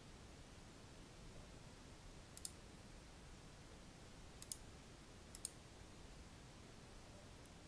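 Computer mouse button clicks: three quick double clicks, the first about two seconds in and the other two a second apart near the middle, over faint room hiss.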